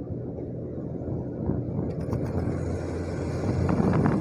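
Motorcycle engine running with road noise while riding, a steady low drone that grows somewhat louder near the end.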